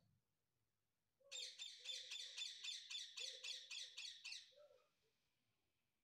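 Alexandrine parakeet giving a rapid run of high, repeated calls, about four a second, starting just over a second in and lasting about three seconds.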